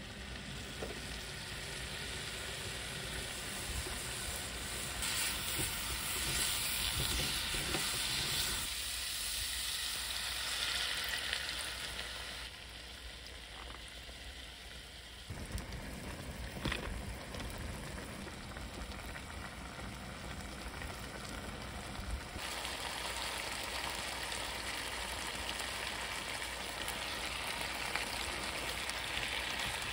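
Diced potatoes sizzling in chili oil in a pot, then potatoes and shishito peppers bubbling in a soy-sauce braising liquid, stirred with a spatula. The sizzle changes abruptly several times.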